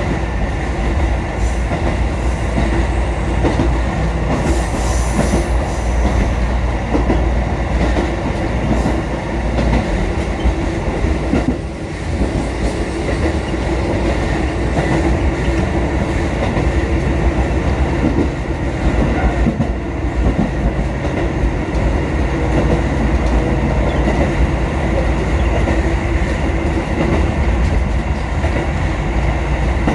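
Kotoden 1080-series electric train running along the line, heard from inside the leading car: a steady rumble of wheels on rail with faint running tones, dipping briefly about twelve seconds in.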